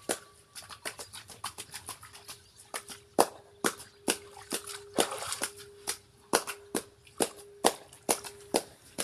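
A singing bowl rings with one steady tone that holds for long stretches with short breaks, while sharp percussive strikes sound over it, loosely at first and then about two a second in an even rhythm.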